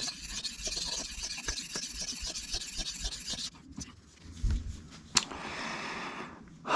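Knife blade (Cold Steel 4 Max Scout) being stroked across a Shapton water stone, a steady hissing scrape that stops about three and a half seconds in. A sharp click follows, then a second, shorter scrape near the end.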